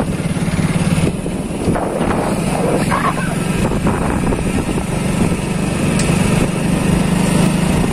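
Motorcycle engine running steadily as the bike is ridden along.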